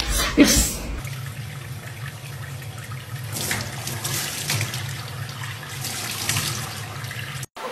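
Tap water running into a stainless steel sink, splashed by a young chimpanzee's hands held in the stream, with louder splashing about three seconds in and again near the end.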